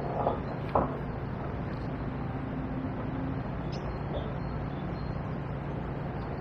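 Steady outdoor background of a swollen river flowing, with a faint low hum like distant road traffic under it. Two short knocks sound in the first second.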